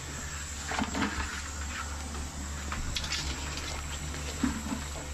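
Crab broth sloshing in a large aluminium stockpot as a crab is pushed down with metal tongs, with a few short clinks. A propane burner runs underneath with a steady low rumble.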